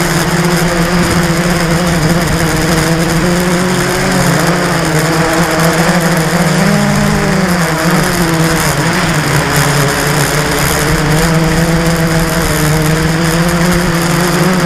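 Blade 350 QX quadcopter's four brushless electric motors and propellers buzzing close to the onboard camera, a steady pitched hum over a hiss. The pitch rises and falls about halfway through as the throttle changes while it manoeuvres.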